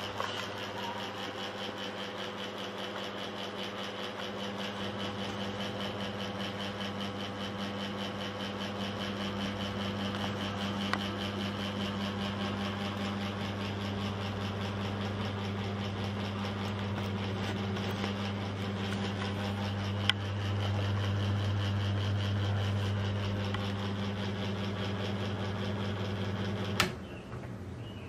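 Niga FC05-60 mini ceiling fan running with a steady electric-motor hum. About a second before the end a click is heard and the hum stops at once: the fan is switched off and its blades coast down.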